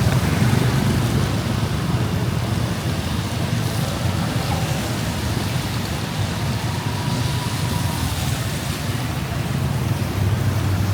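Steady noise of riding a motorbike through heavy rain: the low hum of the engine and traffic mixed with wet-road and wind noise.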